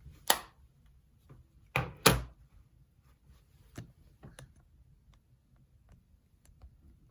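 A few sharp knocks and clicks in a small room. A loud one comes about a third of a second in and a louder pair close together around two seconds, followed by fainter knocks and scattered light ticks.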